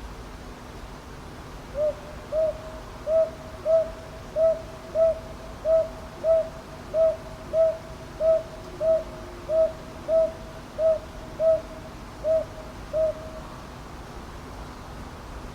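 Northern boobook (Ninox japonica) calling: a run of about eighteen low hoots, paired as "hoo-hoo", starting about two seconds in and stopping a couple of seconds before the end.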